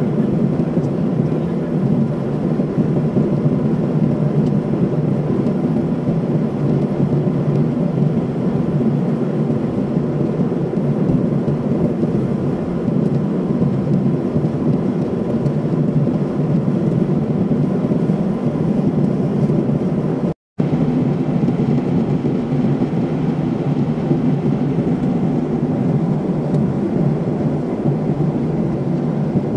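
Steady cabin noise of a jet airliner in flight, heard from a window seat: an even low rush of engines and airflow with a faint steady tone above it. The sound cuts out for a split second about twenty seconds in.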